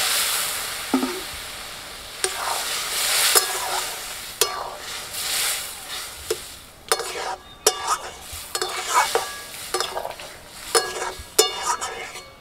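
Boiled dal and drumstick pieces hitting hot spiced oil and tomato masala in a karahi sizzle loudly at first, the hiss dying away over a couple of seconds. A metal spatula then stirs the pot, scraping and clinking against the metal wok, more often towards the end.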